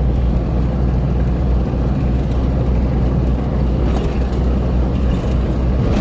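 Steady in-cabin drive noise of a 1989 Jeep Cherokee XJ cruising at about 40 mph: a low drone from its inline-six engine and drivetrain, mixed with road noise from its 35-inch tyres.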